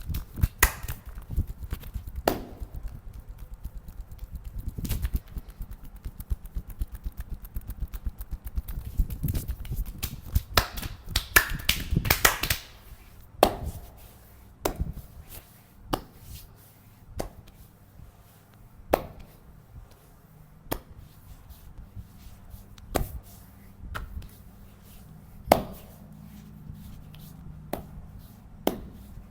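Percussive massage: hands striking the body in rapid tapping and chopping strokes for about twelve seconds, then single sharp slaps every second or two.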